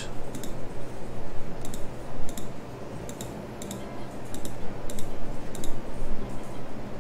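Computer mouse button clicking, about a dozen sharp clicks, some in quick pairs, as sketch lines are picked one after another, over a steady low hum.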